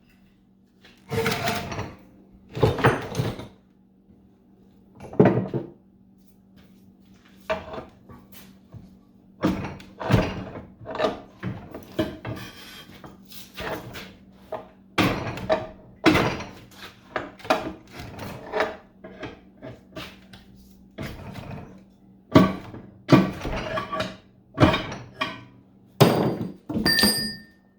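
Irregular knocks, clanks and scrapes of hand tools working on the metal parts of a variable-speed gearbox while freeing a pulley sheave, with a few short metallic rings near the end. A faint steady hum runs underneath.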